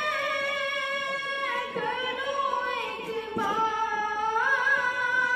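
A child's solo voice singing a naat, an Urdu devotional poem in praise of the Prophet. It moves in long held notes with slow glides between them, and no instruments are heard.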